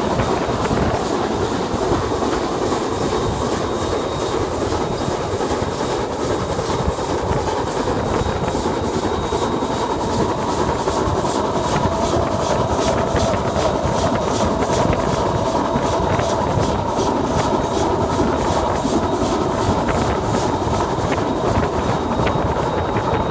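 Train hauled by New Zealand Railways Ja class steam locomotive No. 1250 running along the line, heard from aboard. Steady wheel-on-rail clatter with an even, quick rhythm of beats over the running noise.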